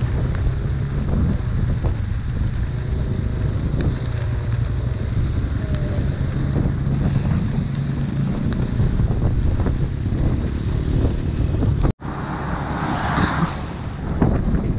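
Floodwater sloshing in a street with vehicle engines running through it, and wind buffeting the microphone. A brief dropout comes about twelve seconds in, followed by a louder rush of water.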